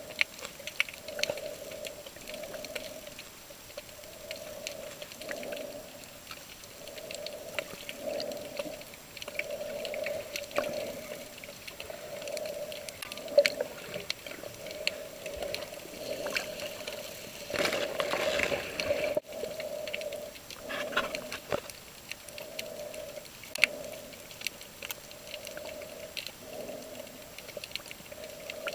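Underwater sound heard through a camera's waterproof housing: a muffled hum that swells and fades about once a second, dotted with scattered sharp clicks. A louder rushing burst of water noise comes about eighteen seconds in.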